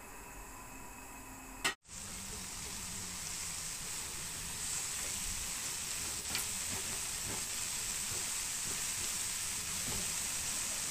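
Sausages sizzling in a dry, fat-free grill pan as they are browned and moved with a silicone spatula. A faint hiss for the first couple of seconds, then a sharp click, after which the sizzling comes in louder and holds steady, with a light tap of the spatula partway through.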